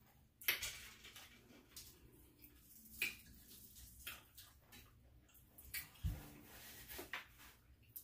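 Eating crispy fried chicken: irregular crunches, smacks and tearing as the meat is bitten and pulled off the bone by hand, the sharpest about half a second in and about three seconds in, with a soft low bump about six seconds in.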